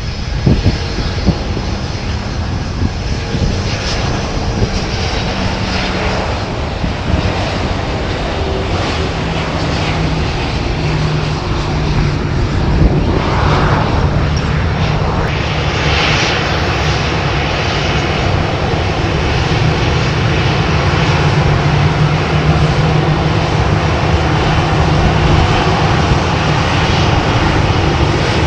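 CFM56-7B turbofan engines of Boeing 737-800 airliners at taxi power: a steady, loud jet engine noise with a low, even hum underneath.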